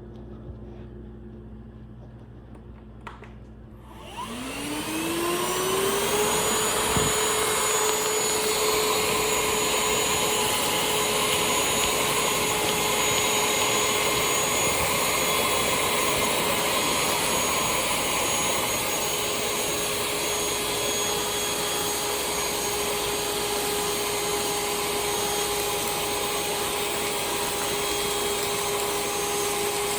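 Shark UltraCyclone cordless handheld vacuum switched on about four seconds in, its motor spinning up in a rising whine over a couple of seconds, then running steadily with a high whine over a strong rush of air.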